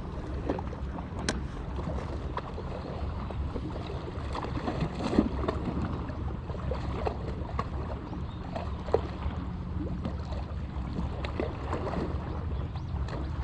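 Steady low engine hum, typical of a boat running nearby, with water lapping and small splashes against the breakwater and wind on the microphone.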